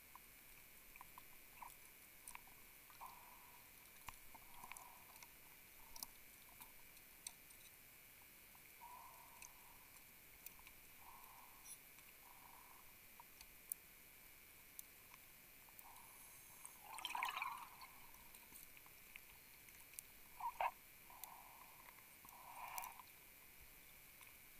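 Near silence recorded underwater: faint scattered clicks and soft water gurgles, with a louder gurgle about 17 seconds in and two more near the end.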